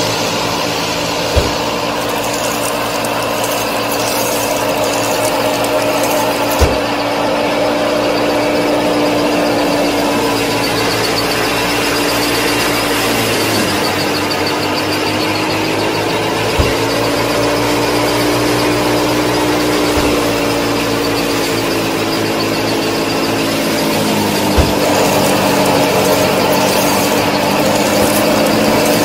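Small motors of a miniature model tractor and wheat thresher running with a steady multi-tone mechanical whine. The pitch dips and wavers about halfway through and again later, and a few short knocks come at scattered moments.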